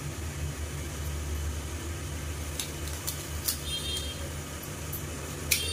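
A steady low rumble, with a few light clicks and taps from a wooden idiyappam press as it is squeezed over a steamer plate, the loudest tap near the end.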